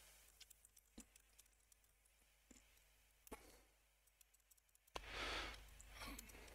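Near silence with a few faint, isolated clicks of typing on a computer keyboard, and a short breath about five seconds in.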